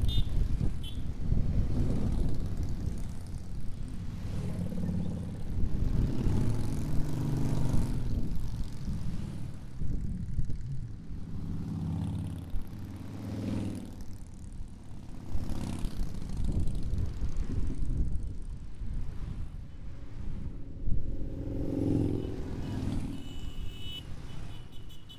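Cruiser and touring motorcycles riding past in a long procession, one after another; the engine sound swells and fades as each bike goes by.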